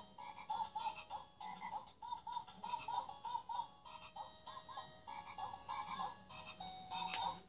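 Infantino Lights and Sounds Touchpad baby toy playing a nursery-rhyme melody through its small speaker as short electronic animal-voice notes, a few notes a second, the animals singing along with the tune. A click near the end.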